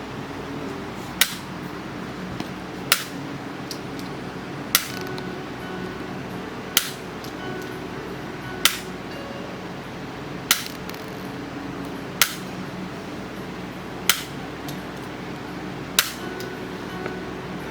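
Handheld chiropractic adjuster firing: nine sharp clicks, evenly spaced about two seconds apart.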